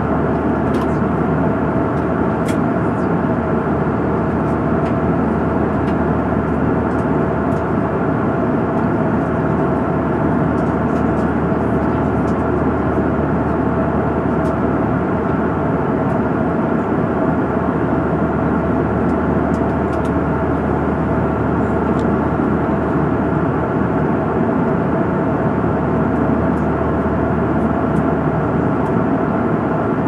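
Airliner cabin noise at cruise: a steady rush of engine and airflow sound with a few held tones and occasional faint clicks.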